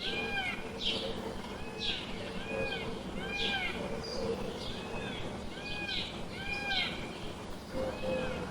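Bird calls: a short arched call, rising then falling, repeated about once a second, with sharper chirps between.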